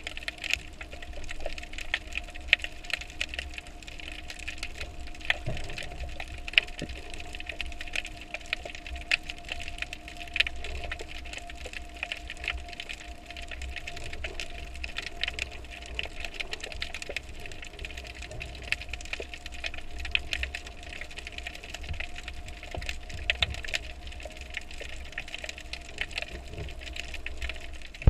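Underwater ambience picked up by a camera in its waterproof housing: a steady crackle of small irregular clicks and ticks over a low rumble, with two faint steady hums.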